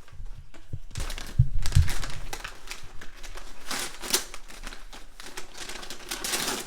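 Wrapping paper being torn and crumpled as a present is unwrapped: a run of crackling and rustling, with a few dull thumps about a second and a half in.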